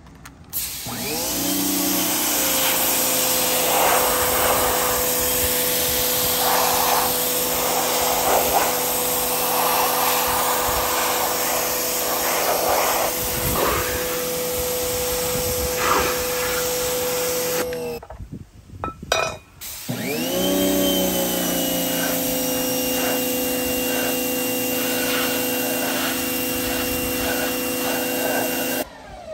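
Pressure washer running, its jet of water spraying and spattering on cast iron and steel pans, blasting off rust and old seasoning loosened by a vinegar soak. The motor winds up as it starts, cuts out for a couple of seconds about two-thirds of the way through, then winds up again and stops near the end.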